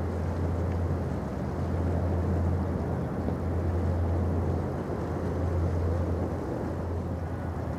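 Low, steady drone of a large ro-ro ferry's engines as the ship moves through the water, over an even background rush.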